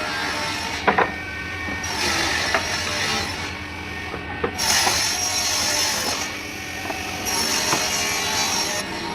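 A power tool cutting wood in repeated passes. During each pass of about a second and a half a high-pitched whine rises over the noise, then drops away briefly before the next pass.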